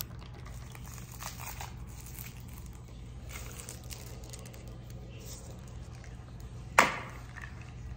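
Faint crinkling and handling of a plastic bubble tea cup and a wrapped straw over a low steady hum, then one sharp pop near the end as the straw is stabbed through the cup's sealed plastic film top.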